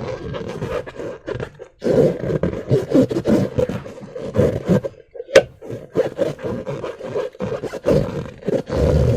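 Slime and rubber balloons handled by hand: a continuous, irregular run of squelching and rubber rubbing, with a sharp click about five seconds in.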